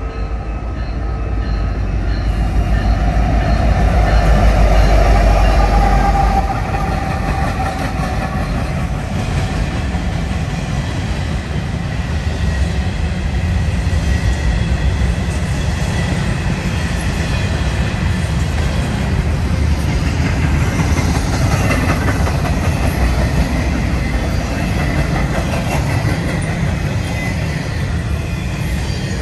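Union Pacific freight train passing close by: the lead diesel-electric locomotives are loudest about four to six seconds in, their low engine sound falling away as they go past. Then loaded container well cars roll by with a steady rolling noise and clatter of wheels on rail.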